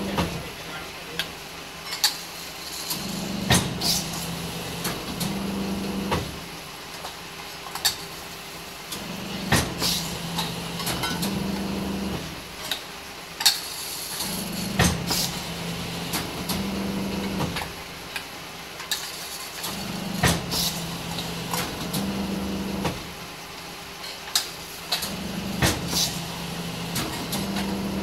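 Hydraulic beading press forming the rims of stainless steel bowls. Its hum gets louder and quieter in a cycle that repeats about every five seconds, with sharp metallic clinks as the bowls are set in and taken off the die.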